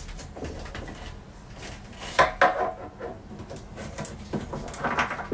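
Gloved hands working on a yacht toilet's plastic holding tank and its fittings inside a cabinet: a string of knocks and clatters, the loudest about two seconds in and again near the end.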